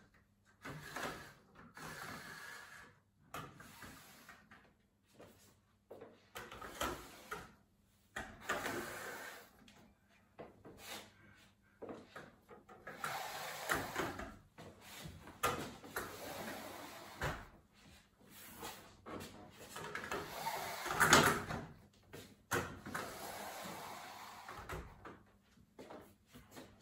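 Click-fit concertina blinds on French doors being pulled up and down by hand: a series of short swishes of the sliding rails and pleated fabric, with clicks as they stop, the loudest about two-thirds of the way through.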